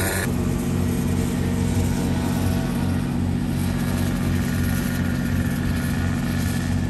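Small go-kart engine running at a steady speed, a constant low hum with no revving.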